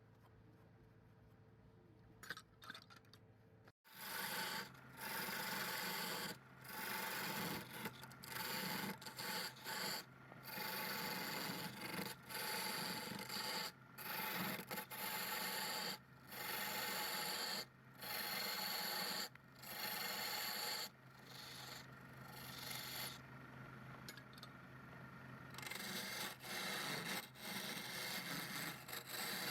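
Wood on a lathe being scraped by a hand-held turning tool in repeated passes, each a second or two long with short breaks between them, over a steady low motor hum. The scraping starts about four seconds in, after a faint opening.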